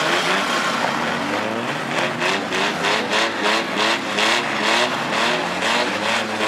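Several demolition derby car engines running and revving at once, their pitches wavering up and down. From about two seconds in, a rapid pulsing noise of about four a second runs over them.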